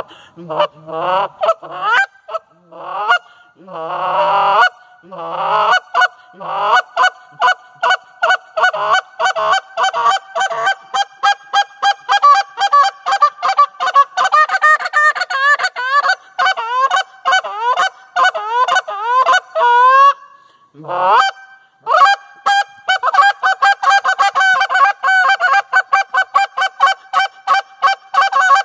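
Molt Gear Triumph goose call blown by hand, imitating Canada goose honks. A few longer honks open, then fast runs of short clucking notes at about five a second, a brief pause about twenty seconds in, and another fast run.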